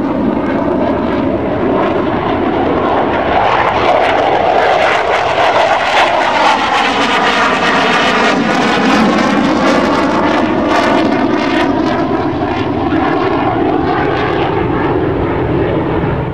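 Loud jet noise of an F-16 fighter flying past overhead, a steady rushing sound with a swishing, phasing tone that sweeps up and down as the jet passes.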